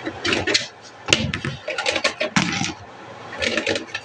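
Dishes and kitchenware clattering and knocking as they are handled and set down, in a quick irregular run of clinks and knocks with the sharpest about a second in.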